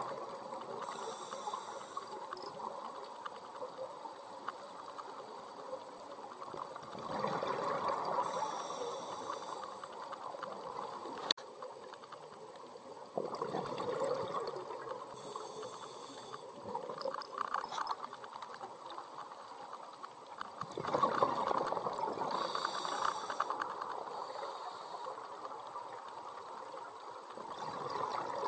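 Underwater scuba breathing through a regulator: a short hiss on each inhalation and a rush of gurgling exhaust bubbles on each exhalation, repeating about every seven seconds. A single sharp click about eleven seconds in.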